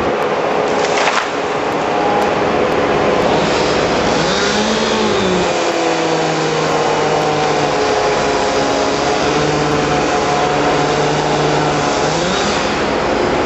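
A motor of tree-removal machinery running over a steady loud noisy din, its pitch rising and falling about four seconds in and again near the end, like an engine being revved up and let back down.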